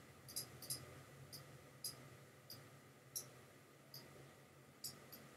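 Faint clicks of a computer mouse button, about nine at irregular spacing, against near silence.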